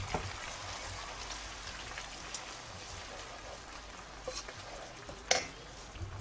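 Fried onions and oil sizzling steadily in a frying pan, with a few sharp knocks of a wooden spoon against the pan as yogurt is stirred in; the loudest knock comes about five seconds in.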